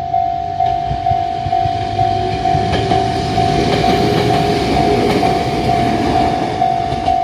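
Japanese level-crossing warning bell ringing in a steady ding about twice a second, while a Kotoden electric train passes over the crossing. The train's rumble and wheel clacks swell from about two seconds in and fade near the end, with a brief steady whine in the middle.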